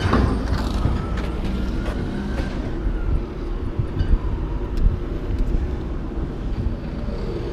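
A vehicle engine idling with a steady low rumble, with scattered knocks and clatters over it.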